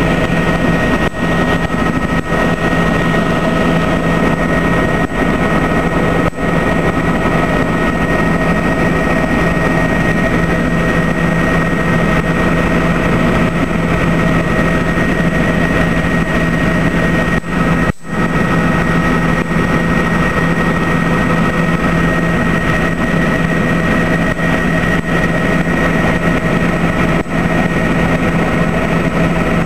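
Helicopter engine and rotor running in steady flight, heard from inside the cabin as a loud, constant drone with a steady whine over it. The sound briefly drops out about 18 seconds in.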